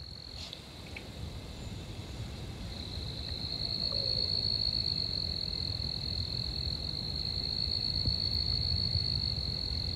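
A cricket's continuous high trill, one unbroken pitch, over a low background rumble. It drops out just after the start and comes back about three seconds in.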